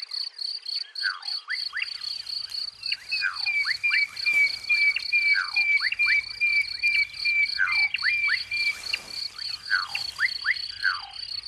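Savanna ambience: an insect chirping in a steady rapid pulse, with birds calling in short whistled notes that sweep down and up, and a run of evenly repeated notes, about three a second, from about three to nine seconds in.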